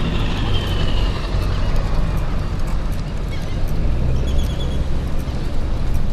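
Steady low outdoor rumble of wind and surf on an open beach, with a gull's faint falling call near the start and a few short high chirps about four seconds in.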